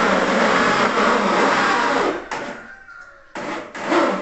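An electric power tool's motor running steadily under load, dying away about two seconds in, followed by a couple of short sounds near the end.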